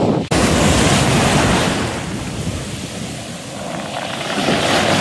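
Small waves breaking and washing up the shore close to the microphone, with wind on the microphone. The wash eases a couple of seconds in and builds again near the end.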